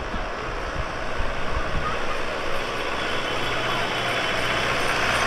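Diesel tractor engines running as a procession of tractors drives past, growing louder toward the end.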